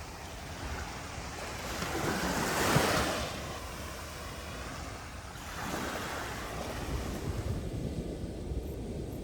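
Andaman Sea surf washing onto a beach: a wave swells and breaks about three seconds in, and another washes in around six seconds. Wind rumbles on the microphone throughout.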